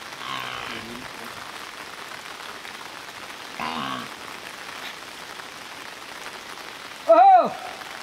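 Steady rain falling, a continuous hiss of drops. Brief voice sounds come just after the start and again about four seconds in. About a second before the end, a loud short call rises and falls in pitch.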